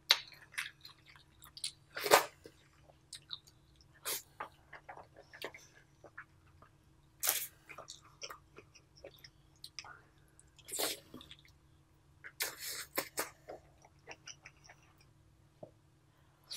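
Close-miked chewing and wet mouth sounds of eating king crab meat coated in a creamy sauce: irregular smacks and clicks, with a few louder bursts about two, seven, eleven and thirteen seconds in.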